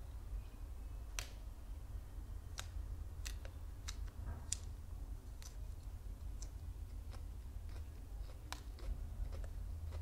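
Close-miked chewing of raw magnolia petals: irregular crisp, crunchy clicks, about a dozen, over a steady low hum.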